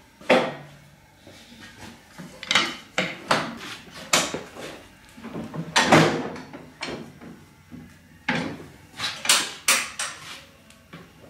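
Metal clanks, knocks and scrapes as the steel sliding table and cover plate of a combination woodworking machine are shifted and lifted off. There are about ten separate knocks, the loudest near the start and around the middle.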